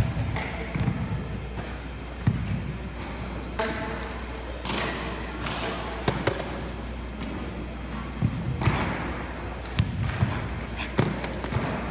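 Sharp cracks and thuds from a karate kata, scattered irregularly: the uniform snapping with strikes and bare feet stamping on a hardwood gym floor.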